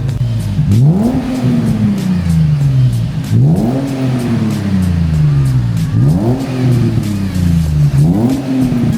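Nissan 350Z's 3.5-litre V6 revving four times from idle through a newly fitted Japspeed stainless cat-back exhaust. Each rev rises quickly and settles slowly back to idle.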